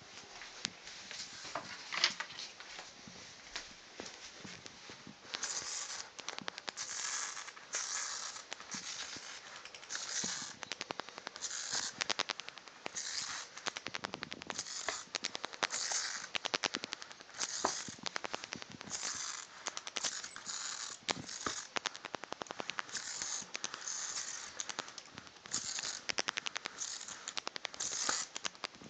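A bat crawling and fluttering its wings on a bedsheet and a sheet of paper: bursts of rapid, crackling clicks, roughly one burst a second, with scattered single sharper clicks.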